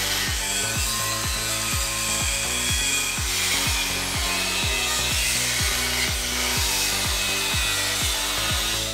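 Angle grinder cutting into a steel tube, a steady grinding hiss throughout. Background music with a steady beat plays underneath.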